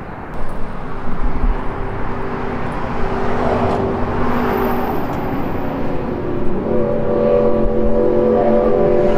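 Street traffic: a passing vehicle's tyre and engine noise swells and fades about a third of the way in. Then a motor vehicle's engine hums steadily with a droning tone through the last few seconds.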